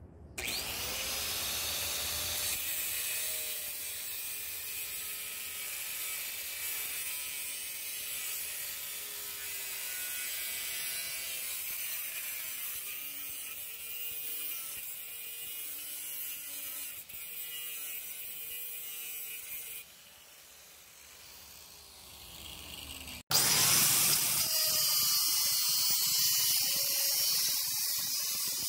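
Electric grinder working the steel of a Milwaukee Sawzall blade, grinding off its teeth: a steady high hiss with the motor's pitch wavering as it is pressed in. It drops off for a few seconds near the end, then comes back louder after a sudden break.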